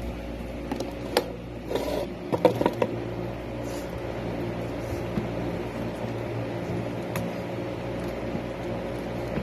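Electric stand fan running with a steady hum. A few short knocks and bumps come about one to three seconds in.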